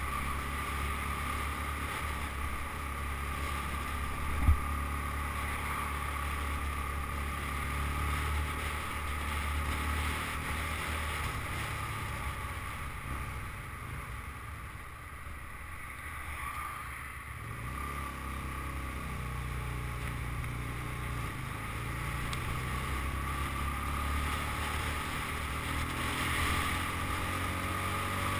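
Motorcycle engine running steadily as the bike rides along, with wind noise over the microphone; the engine sound drops away for a few seconds midway, then picks up again. A single sharp click about four and a half seconds in.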